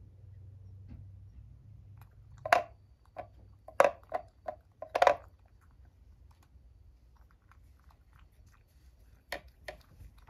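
Cat eating a bonito-flavoured churu treat from a ceramic bowl, licking and chewing. A quick run of loud sharp mouth clicks comes about two to five seconds in, and two more near the end.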